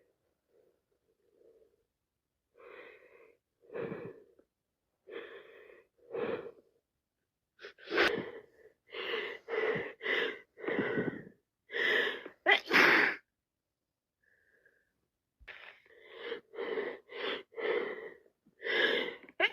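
A woman with a cold sneezing over and over in a long fit. A few softer sneezes come first, then rapid runs of louder sneezes, the loudest near the middle, with a short pause before the last run.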